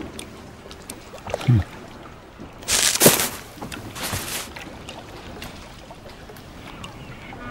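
Sound effects for a small rowboat scene: a short sound dropping in pitch about a second and a half in, then two brief swishes near the three- and four-second marks, over faint background.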